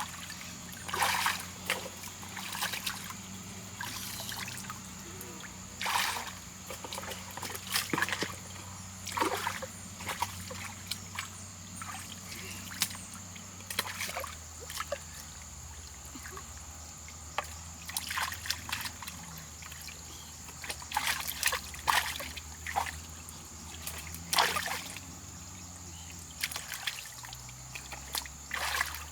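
Water splashing and trickling in irregular bursts, a stroke every second or two, over a steady low hum and a steady high-pitched whine.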